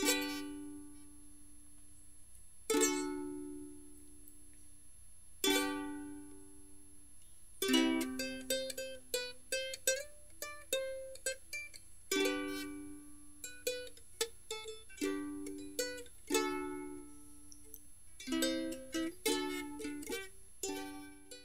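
Background instrumental music on plucked strings: three slow chords that ring and fade, then a quicker picked melody from about a third of the way in.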